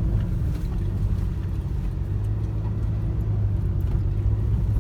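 Car running along a rough dirt road, heard from inside the cabin: a steady low engine drone and road rumble, with a few faint knocks.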